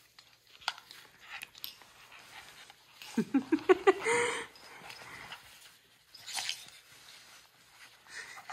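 Small curly-coated dog giving a quick run of short, pitched whines about three seconds in, ending in one longer whine, while a jacket and harness straps rustle and click as they are fitted.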